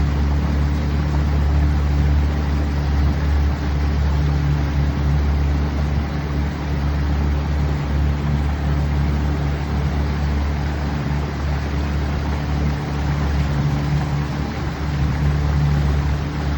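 Boat motor running steadily under way, with a loud, even rush of wind and water over it.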